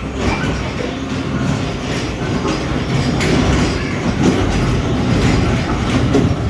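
Small ride-on kiddie train running along its track: a steady rumble with scattered clicks.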